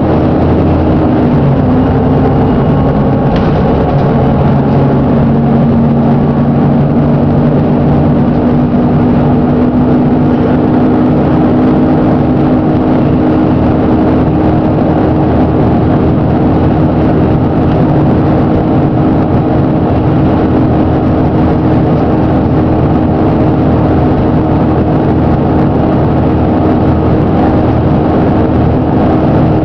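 Plaxton President double-decker bus with a Voith automatic gearbox running under way, a loud steady engine drone with humming tones that shift in pitch in the first few seconds and then hold. The engine has a bad knock.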